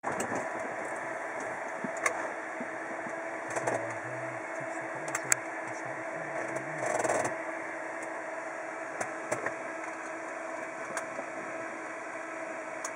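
Steady mechanical hum inside a small aircraft's cabin, with a few sharp clicks and faint voices midway.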